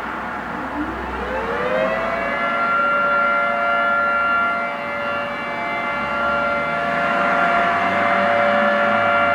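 Federal Signal 2T22 dual-tone outdoor warning siren winding up from a low pitch over about two seconds to a steady two-note chord, sounding for a test. Its loudness dips briefly about halfway and then swells again.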